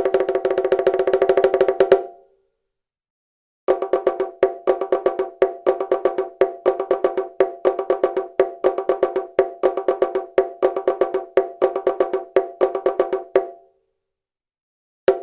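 A pair of bongos played by hand: a fast roll of strikes that stops about two seconds in, then, after a short silence, a steady rhythmic pattern that moves between the higher and lower drum and stops near the end.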